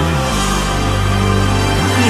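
Live concert music with no singing: an instrumental passage built on long held low bass notes that shift pitch a couple of times.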